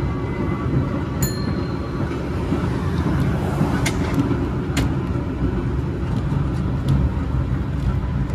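San Francisco cable car running on its rails: a steady low rumble, with a brief high ding about a second in and a couple of sharp clacks around the middle.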